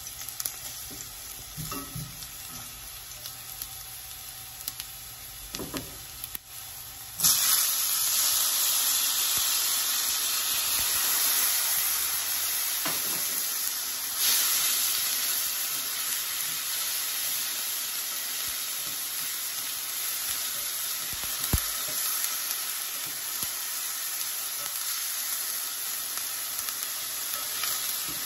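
Garlic frying gently in oil in a stainless steel pan, with a spatula scraping and stirring. About seven seconds in, a sudden loud sizzle starts as chopped tomatoes go into the hot oil, and the pan keeps sizzling steadily as they are stirred.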